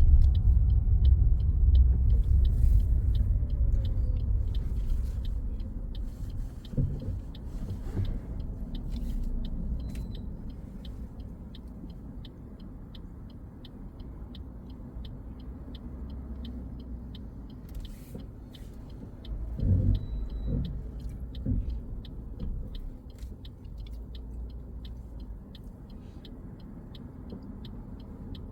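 Car cabin rumble from engine and road, louder in the first few seconds and then quieter, with the turn indicator ticking steadily at about one and a half clicks a second for a left turn.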